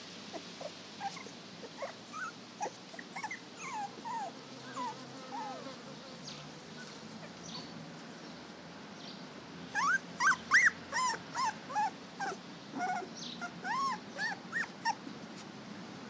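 Young puppies whimpering in short high squeaks and whines, scattered at first, then a louder run of quick cries from about ten seconds in until near the end.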